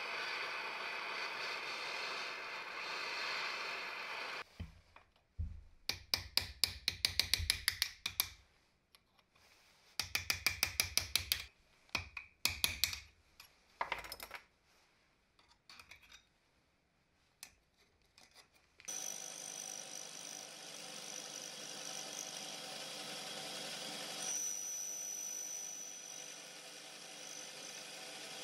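A handheld blowtorch hissing steadily, then, after about four seconds, short runs of rapid, sharp metal taps with quiet gaps between them. Some 19 seconds in, a metal lathe starts running steadily, turning a part against a cutting tool, with a faint high whine.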